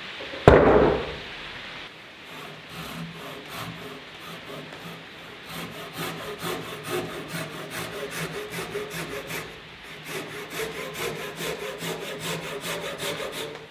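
A heavy wooden knock as the timber post is handled on the sawhorses. Then a Japanese pull saw cuts the cheek of a tenon in the end of the wooden post, with quick, even rasping strokes, a short pause a little past the middle, and more strokes after it.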